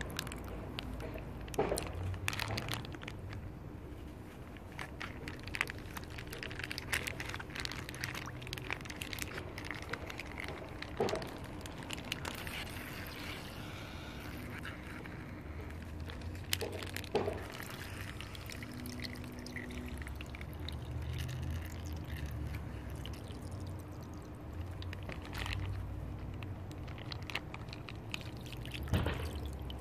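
Water trickling and pouring from a hole in a plastic Ziploc bag into a foam to-go box, with a few short handling noises from the bag.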